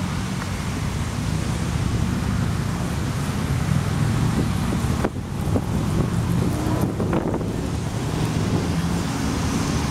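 Wind buffeting the microphone over a steady low rumble of outdoor background noise.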